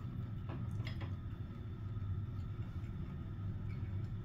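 Faint eating sounds: a couple of light clicks about half a second and a second in, over a steady low hum.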